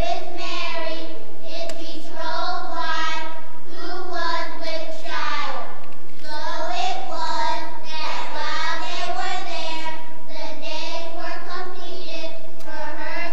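A group of young children's voices together in unison, in drawn-out phrases with short breaks between them.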